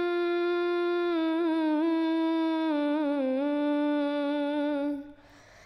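A single voice chanting an Arabic devotional song without instruments, holding one long note with melodic turns in the middle, then stopping about five seconds in.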